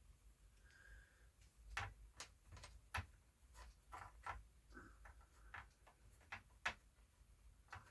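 Faint, irregular light clicks and taps from a small vacuum tube being handled and worked into a tester's socket.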